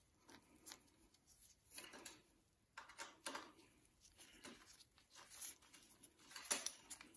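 Faint, scattered clicks and rustles of nitrile-gloved hands turning a hex key in a tight bicycle rear derailleur mounting bolt, the loudest click about six and a half seconds in.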